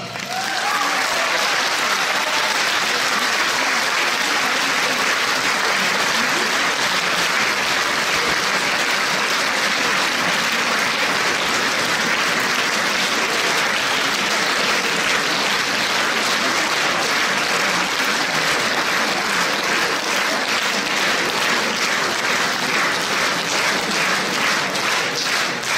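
Large audience applauding steadily in a hall, the orchestra's last note fading out under it in the first second or so. Individual claps stand out more near the end.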